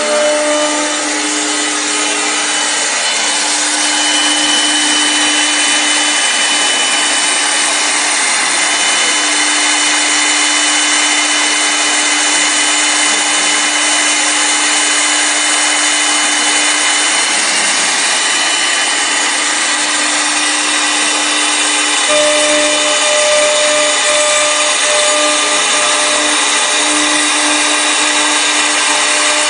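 CNC wood lathe turning a wooden blank, its cutting knives shaving the spinning wood: a loud, steady rush of cutting noise with a high motor whine and a lower hum that comes and goes.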